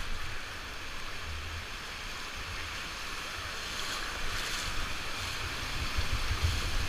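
Whitewater rapids rushing and churning around an inflatable raft, with wind buffeting the microphone; the rush grows louder over the last couple of seconds as the raft drops into the rapid.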